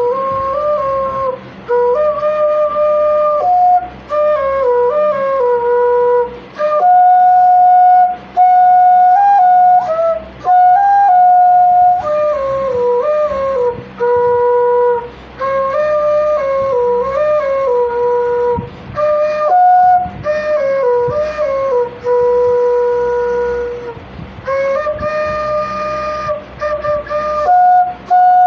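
Background music: a solo wind-instrument melody, flute-like, played in slow stepwise phrases that end on held notes, with short breaks between phrases.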